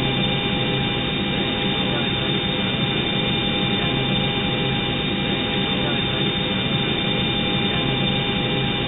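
Reconstructed cockpit voice recorder background noise: a steady, unchanging cockpit hiss with a few constant tones, dull and muffled like a recorder's audio.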